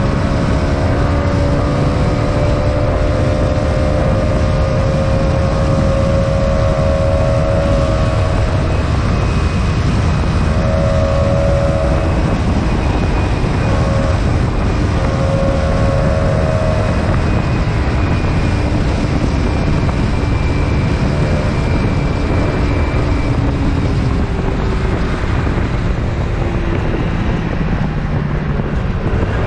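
Wind buffeting the microphone over the steady drone of a PGO Tigra 150 scooter's single-cylinder engine at cruising speed, its pitch drifting a little as the throttle changes.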